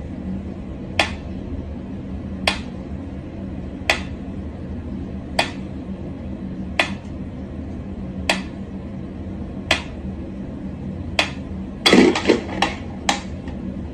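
Sharp clicks at an even pace, about one every second and a half, over a steady low hum. Near the end comes a quick flurry of louder clatter.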